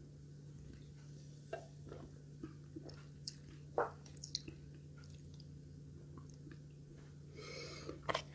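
Quiet close-up eating sounds: soft scattered mouth clicks and smacks of chewing and swallowing, with a short breathy hiss near the end, over a faint steady hum.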